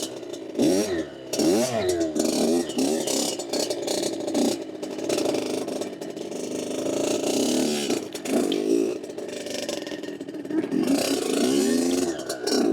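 Dirt bike engine revving up and easing off again and again as it is ridden, its pitch rising and falling several times.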